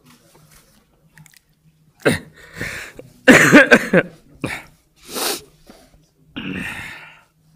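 A man crying: after a quiet pause, a run of broken sobs, sniffs and gasping breaths, the loudest a wavering, choked sob about halfway through.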